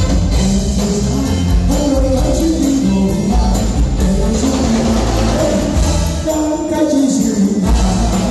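Live band playing an upbeat pop song through a PA system, with a male lead vocal, a drum kit and keyboards, the bass heavy and the drum beat steady. The bass and drums drop out briefly near the end before the beat comes back in.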